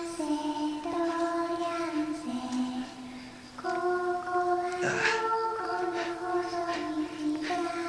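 A woman's voice singing a slow melody, each note held for about a second before stepping to the next. A brief noise cuts across it about five seconds in.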